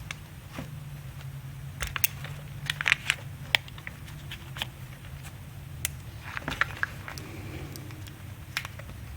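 Small sharp clicks and taps of hands working a wire terminal into a plastic connector housing, scattered and irregular, over a steady low hum.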